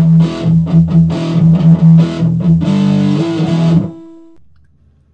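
Short intro music played on a distorted electric guitar, rhythmic chords that stop about four seconds in, with one note ringing on briefly before it goes quiet.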